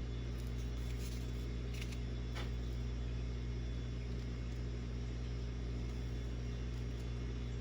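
Steady low hum with a few faint clicks about two seconds in.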